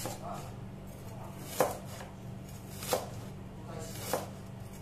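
Large cleaver slicing through an onion and striking a wooden cutting board: three sharp knocks about a second and a quarter apart.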